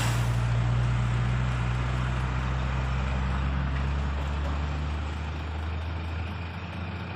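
Heavy diesel truck engine idling: a steady low drone that slowly fades over the second half.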